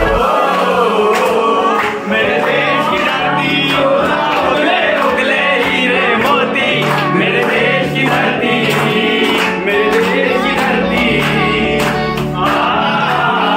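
Background music: a song with singing, male and group voices over instruments, playing steadily.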